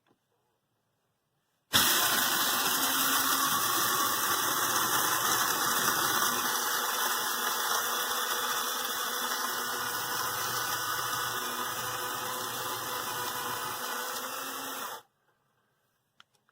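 Kaffe One-Touch electric blade coffee grinder running with a full load of about 2.5 ounces of whole beans. It starts suddenly about two seconds in, runs steadily for about thirteen seconds and cuts off sharply, growing gradually quieter as it goes.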